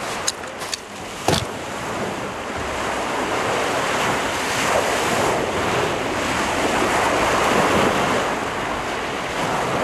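Ocean surf breaking on a beach, its rushing wash swelling to a peak in the middle and easing off near the end. A few short clicks sound in the first second or so.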